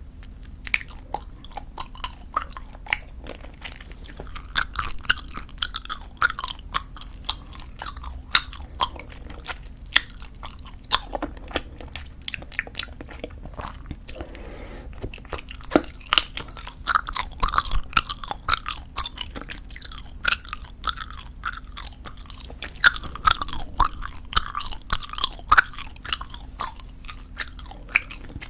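Close-miked chewing of squeezable tube bubble gum: a dense run of sticky smacking clicks, thinning out for a few seconds near the middle, then picking up again.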